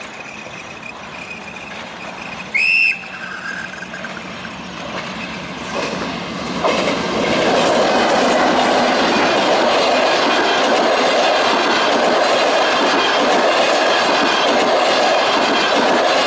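Trenes Argentinos diesel-hauled passenger train: one short, high horn toot about three seconds in. Then the coaches roll past close by over a level crossing, the rolling noise rising sharply at about six to seven seconds and staying loud.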